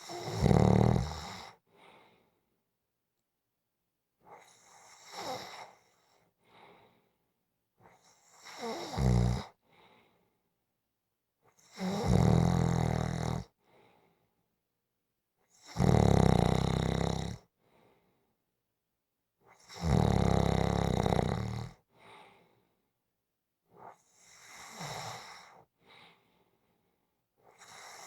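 Snoring in a steady rhythm, one snore about every four seconds, each followed by a short fainter sound, with quiet in between. The snores in the middle of the stretch are the loudest.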